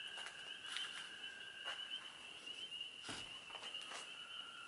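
Faint, steady high-pitched trill of night insects, with a few scattered crunches and knocks of footsteps on a floor littered with debris.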